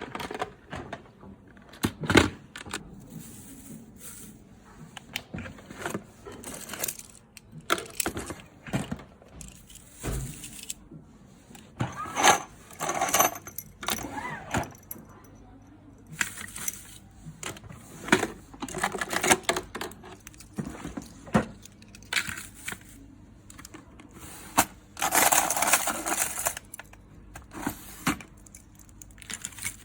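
Self-defense keychain with its key rings and metal pieces jangling and clinking as it is handled, in irregular bursts of sharp clicks and rattles.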